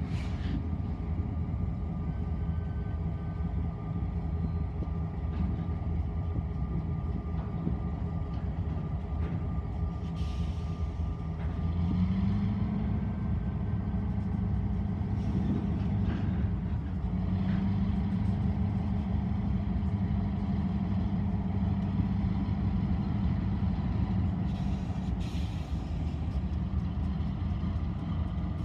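Diesel freight train passing, led by a BNSF GE ES44DC locomotive: a steady low diesel engine drone with rolling rumble, growing louder about twelve seconds in as the locomotives go by.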